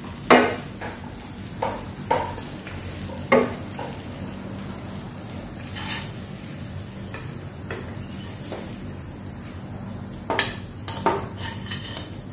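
Metal slotted turner and tongs clinking and scraping against a stainless steel frying pan as spaghetti is lifted out and served into a ceramic bowl. Several separate sharp clinks, the loudest just after the start and again about three seconds in.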